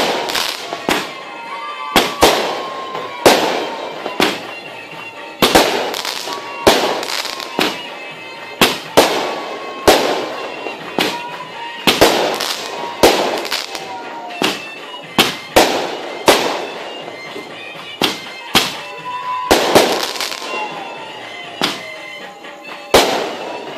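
Aerial fireworks shells bursting in a rapid, irregular string of sharp bangs, about one to two a second. Many bangs are followed by a trailing crackle.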